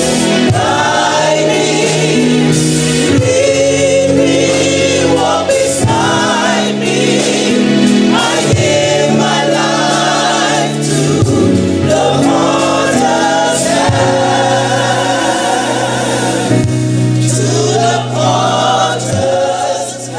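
Gospel choir of mixed men's and women's voices singing together at full voice.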